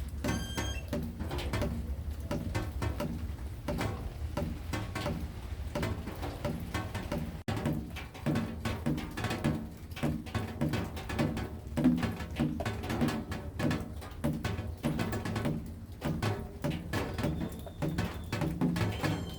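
Rain pattering and dripping in a dense stream of small clicks, over a steady low hum and a repeating low-pitched tone.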